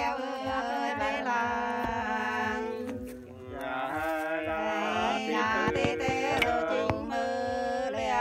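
Two Nùng women singing sli, the unaccompanied two-voice folk song of the Nùng, in long held notes. There is a brief breath pause about three seconds in.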